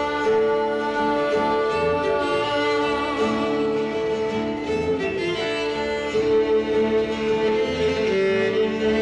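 Live violin playing slow, long held notes, with lower sustained notes beneath.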